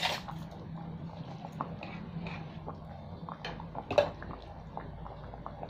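Thick curry gravy simmering in a kadai, with a steady patter of small bubbles popping over a low hum. One sharp click about four seconds in.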